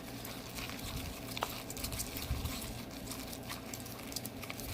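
Slime being stirred in a bowl just after the activator is added: a run of irregular small wet clicks and squishes as the glue mixture starts to clump.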